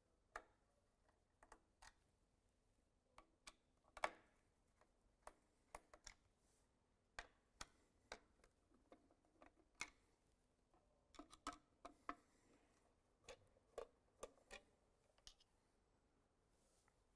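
Faint, irregular small clicks and taps of hands working on an electro-pneumatic valve positioner's housing, opening its hood and fitting the control-signal cable; the sharpest knock comes about four seconds in.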